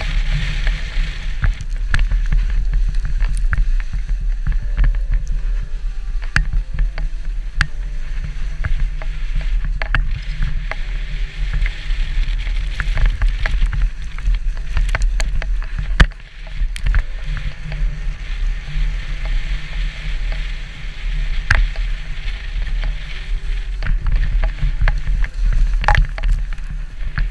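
Wooden horn sled racing downhill: its runners hiss steadily over the snow under a constant low rumble. Frequent sharp knocks and rattles come as the sled jolts over bumps, the hardest one just past halfway.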